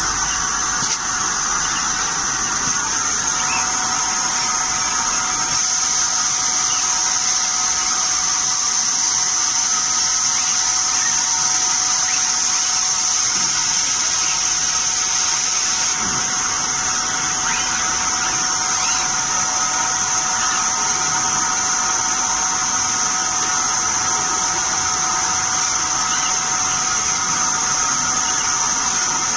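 Genitec GAM330 PCB router machine running steadily: a high-pitched whine and hiss with a steady lower hum-tone beneath, unchanging throughout.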